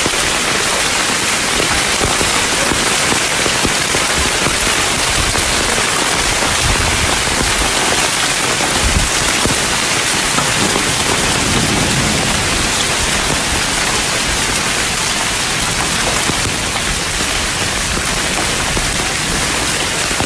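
Heavy downpour of rain with small, gravel-sized hailstones, pelting onto the ground and surfaces in a dense, steady hiss.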